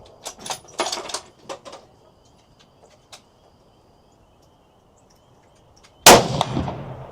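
A single loud gunshot about six seconds in, with a ringing tail. It comes after a run of sharp metallic clicks and clanks in the first two seconds.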